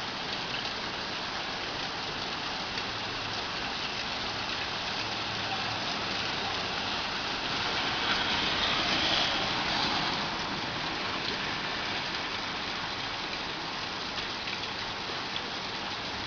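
Heavy rain falling steadily, a dense hiss of drops on surfaces, swelling a little louder for a couple of seconds about halfway through.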